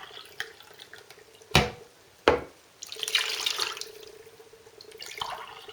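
Water running and being poured into a cooking pot to cover the chicken, with two sharp knocks from about a second and a half in.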